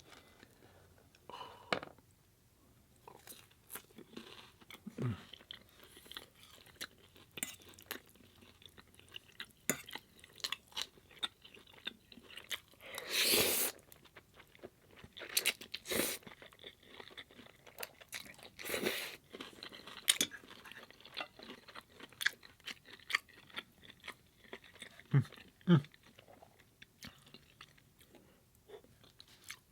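A person biting into and chewing cheesy garlic bread sticks, with wet chewing clicks and crisp crunches; the loudest is a long crunch about halfway through.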